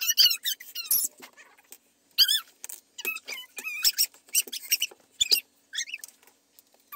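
A child's high-pitched squeals and squeaks in short, irregular bursts that rise and fall in pitch.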